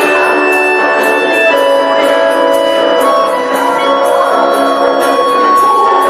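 Ukulele ensemble music: held melody notes over a steady beat of about two strokes a second.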